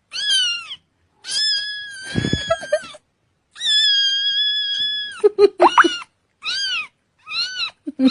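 A cat meowing over and over, about six or seven calls. Two of them are long and drawn out, and the rest are short, each rising then falling in pitch.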